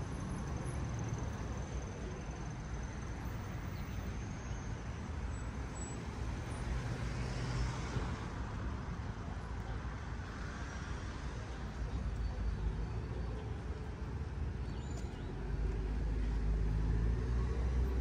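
City street traffic: cars and buses passing on the road alongside, a steady low rumble of engines and tyres. It swells louder near the end as a bus comes close.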